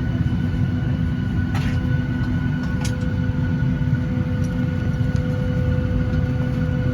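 Cabin noise inside a Boeing 737-900ER on the ground before takeoff: a steady, loud low rumble with a few steady whining tones over it.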